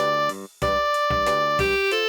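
Polyphonic Nokia ringtone playing a synthesised arrangement of a Bollywood song in keyboard-like tones over a bass line. A short looping phrase breaks off for a moment about half a second in, then starts over.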